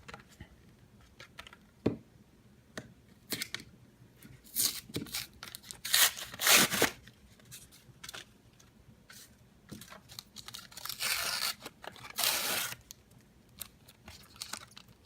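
A Pokemon trading-card blister pack being torn open: its cardboard backing and plastic blister rip and crinkle in a series of separate tearing bursts with small clicks between them. The longest tears come a little under halfway through and again past two-thirds of the way.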